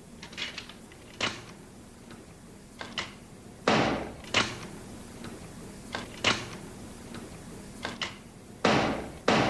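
Plastic VHS cassette parts clacking and knocking against a tabletop as they are handled, a series of sharp irregular knocks, loudest about four seconds in and twice near the end.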